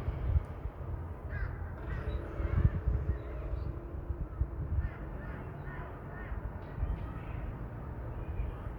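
Several short animal calls, spaced irregularly, over a steady low rumble.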